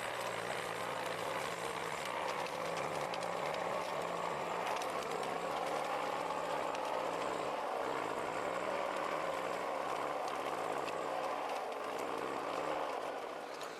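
Heavy logging vehicle's engine running steadily, with a low hum and a few faint clicks.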